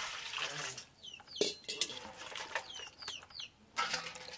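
Water poured from a steel pot splashes into a steel bowl, then stops. About a second and a half in, a steel pot clanks. A bird gives a few short descending chirps, and near the end hands splash in the water, washing fish in the steel bowl.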